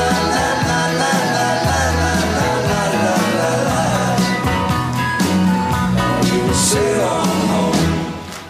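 Live pop-rock band with singing playing the last bars of a song over a steady drum beat; the music dies away near the end.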